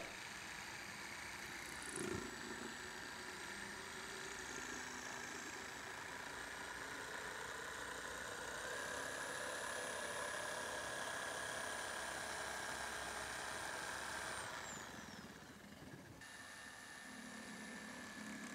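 Electric jigsaw cutting through a wooden board, a steady motor whine with the blade chattering in the wood. The whine steps up in pitch about halfway, then winds down with a falling pitch, and the saw runs again near the end.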